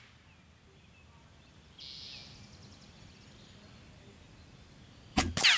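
Shot from a shrouded Benjamin Armada semi-auto .22 PCP air rifle near the end, followed a split second later by a sharp hit with a falling ring, typical of a pellet striking a metal plinking target. Before that, quiet outdoor background with a brief faint hiss about two seconds in.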